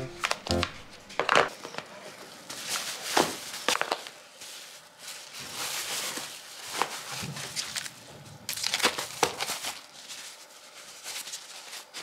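Packing a plastic lunch box into a foil-lined insulated lunch bag: the bag's lining and fabric rustle and crinkle, with a number of sharp plastic clicks and taps in between.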